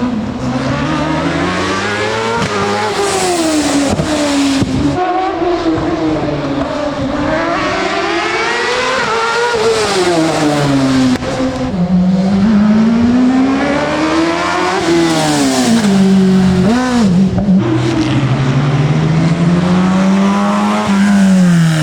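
Racing car engine driven hard: its pitch climbs under full throttle, then drops at each gear change or lift for a corner, again and again. About seventeen seconds in it dips and blips quickly before pulling again.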